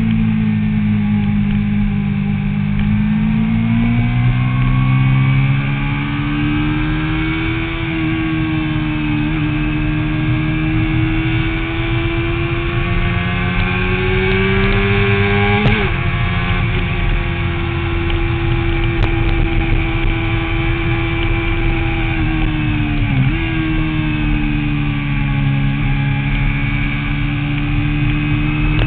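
Motorcycle engine running hard on a race track, heard from a camera on the bike with wind and road noise. The engine note climbs slowly, breaks sharply about halfway through and again about three quarters of the way in, then carries on steady.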